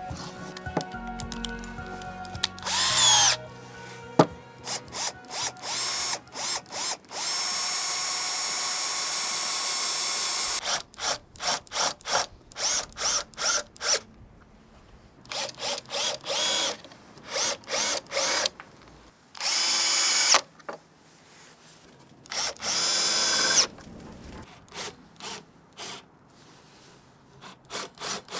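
Cordless drill driving screws into a wooden cabinet frame. The motor whines in many short trigger bursts, with a few longer steady runs: a long one about a quarter of the way in, and two shorter ones past the middle.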